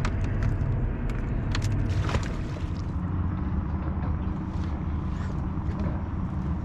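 Steady low engine-like rumble, even and unbroken, with a few sharp light clicks and rattles in the first two seconds or so.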